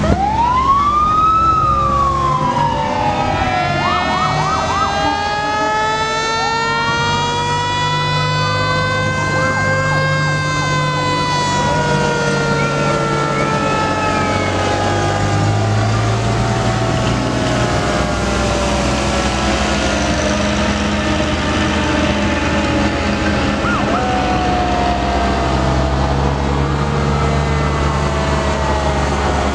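Sirens of several antique fire engines wailing at once, their overlapping tones rising and falling, one winding slowly up to a peak and back down over about ten seconds. Truck engines run steadily underneath.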